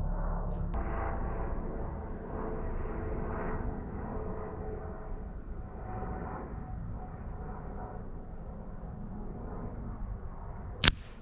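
Steady wind rumble on the microphone, then near the end one sharp crack of a Reximex Lyra air rifle shot at the target.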